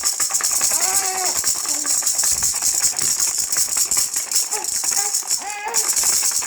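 Baby's toy rattle shaken continuously in a fast, even shake. A couple of short high-pitched voice-like calls come about a second in and near the end.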